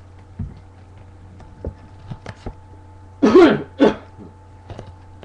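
A person clears their throat in two harsh coughs about three seconds in, over a steady low hum. A few faint clicks and knocks come before it.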